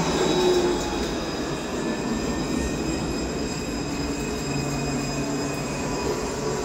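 Alstom Citadis 402 low-floor tram running alongside the platform as it arrives, a steady rumble with a high-pitched whine of several tones over it. A low hum joins about halfway through.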